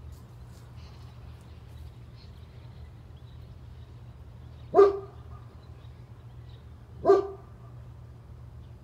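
German Shepherd barking twice, single barks about two seconds apart, the first about five seconds in, over a low steady hum.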